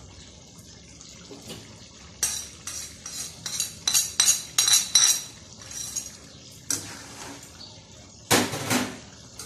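A spatula clinking and scraping against a plate and a wok: a quick run of sharp clinks in the middle, then a louder scrape near the end as the curry is stirred.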